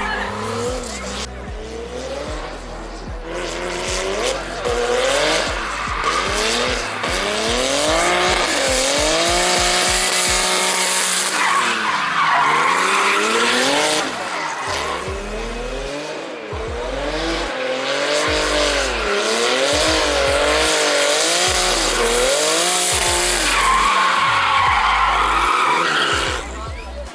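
A drift car's engine revving hard, its pitch climbing and falling again and again as it spins donuts, with the tyres screeching and spinning on the asphalt throughout.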